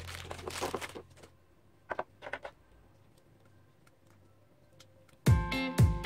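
Thin plastic bag crinkling as it is handled for about the first second, then a few light plastic clicks around two seconds in from small clear plastic parts of a figure stand. Background music with a beat starts loudly about five seconds in.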